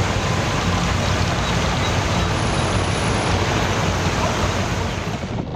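Steady low rumble and hiss of a motor vehicle running with road and traffic noise, cutting off abruptly near the end.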